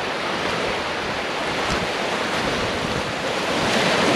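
Shallow surf washing in over a sandy beach, a steady rush of small breaking waves that swells louder as a wave comes in near the end.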